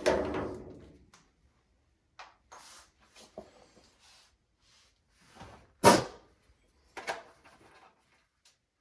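Knocks and light rattling of dryer parts and tools being handled during a repair: a knock right at the start, the loudest sharp knock about six seconds in, and another about a second later.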